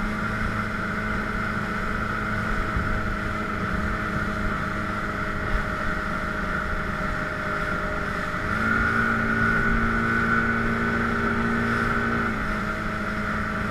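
Yamaha 130 outboard motor running steadily with the boat under way at speed, over the rush of the wake. About two-thirds of the way in, its note changes and grows louder for a few seconds, then settles back.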